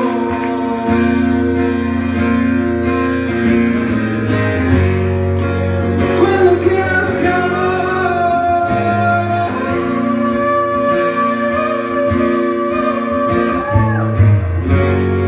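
Live acoustic song: an acoustic guitar played under male voices singing long held notes, with a few sliding notes about ten seconds in and near the end.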